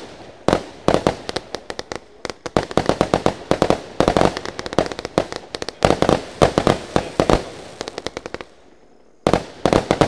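Pyro Parade fireworks cake firing: rapid volleys of sharp bangs from shots launching and bursting in quick succession. A brief lull comes about eight and a half seconds in, before another quick volley.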